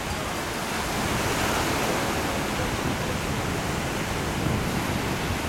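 Steady wash of sea surf breaking on a sandy beach, an even rushing noise with no breaks.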